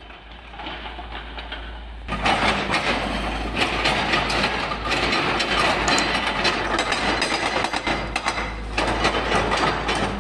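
Epiroc (Atlas Copco) hydraulic rock breaker on a Volvo 210 excavator hammering rock, a rapid, continuous rattle of blows. It is fainter for the first two seconds, then becomes suddenly louder and closer.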